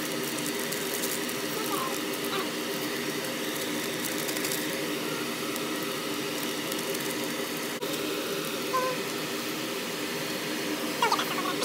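A steady mechanical hum with hiss, with a few faint crackles and short squeaks, the clearest near the end.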